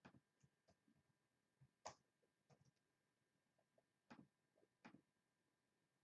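Faint, irregular clicking from computer mouse and keyboard use, a dozen or so clicks in near silence, the loudest about two seconds in.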